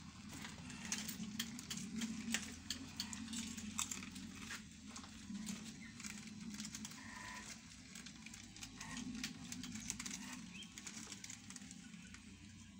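Corded electric hair clipper humming steadily as it shaves a head, with scattered light clicks and rustles over it.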